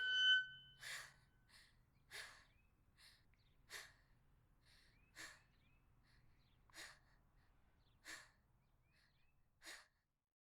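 A person breathing hard, short sharp breaths about every second and a half.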